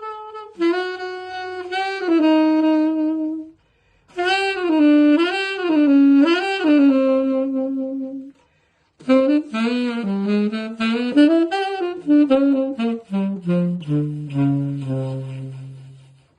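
Tenor saxophone on a J&B Custom 'Pink Panther' mouthpiece with an Ambipoly 2.5 synthetic reed and a Silverstein CRYO4 ligature, played solo in a jazz style. It plays three phrases with short breaths between them, with scoops and bends in pitch; the last phrase steps down to low notes and ends just before the close.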